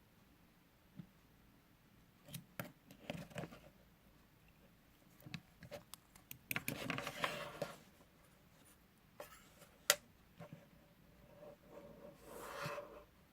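Slime being pressed and stretched by hand, giving faint scattered clicks and short stretches of crackling squish, with one sharp click about ten seconds in.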